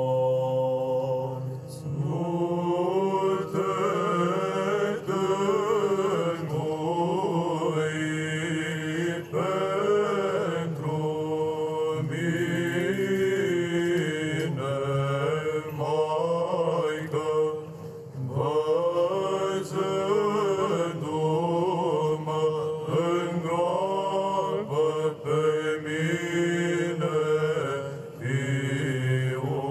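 Men's choir of cantors singing Byzantine chant: a slow, ornamented melody over a steadily held low drone (the ison), with short breaks between phrases.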